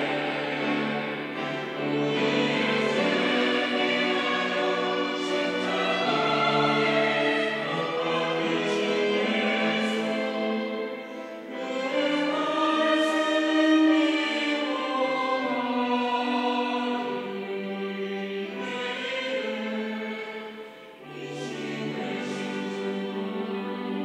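Mixed church choir of men and women singing a Sunday anthem, in long held phrases with short breaks about eleven and twenty-one seconds in.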